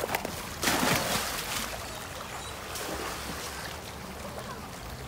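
Swimming-pool water splashing, with one louder splash about a second in, then steady lapping and sloshing as a dog and children swim.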